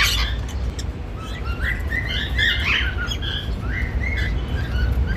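Grey cockatiels chirping and warbling in a string of short whistled notes, many rising in pitch, with a harsher call right at the start: contented, happy vocalizing. A steady low rumble runs underneath.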